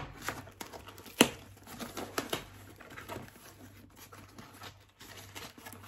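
A small cardboard box handled and opened by hand: scattered light taps, scrapes and rustles of cardboard, with one sharp click about a second in.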